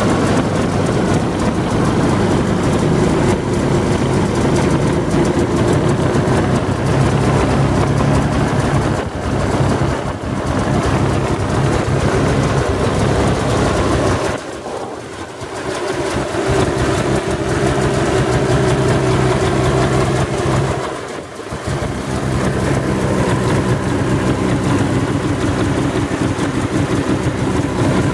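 Arctic Cat M1000 snowmobile's two-stroke twin engine idling steadily, the sound dipping briefly twice, about halfway and about three-quarters of the way through.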